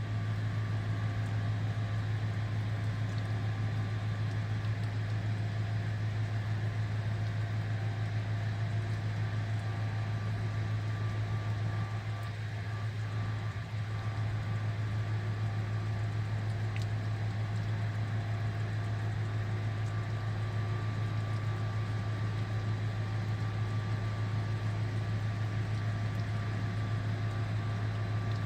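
Steady low mechanical hum that runs without change, dipping slightly for a moment about twelve seconds in.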